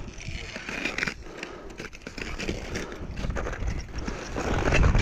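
Crampon footsteps crunching irregularly on glacier snow and ice. A low rumble grows louder near the end.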